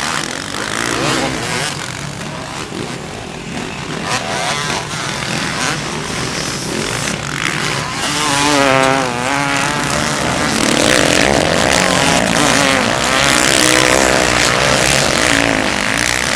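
Motocross bikes' engines running and revving, their pitch rising and falling with the throttle. The sound grows louder about halfway through.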